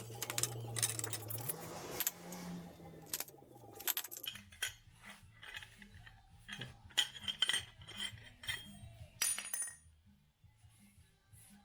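Metal parts clinking and scraping: an inner silencer baffle being handled and slid into a motorcycle exhaust silencer tube. It sits loose in the tube. There is a scraping stretch over the first two seconds, then a run of sharp clicks and knocks.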